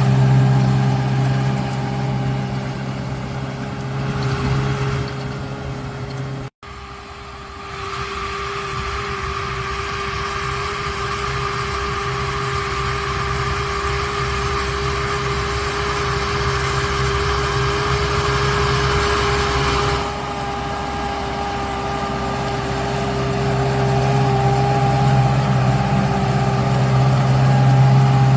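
A large diesel farm machine's engine running steadily under work. About six and a half seconds in, the sound cuts out for an instant and comes back with a different balance, as at an edit between shots.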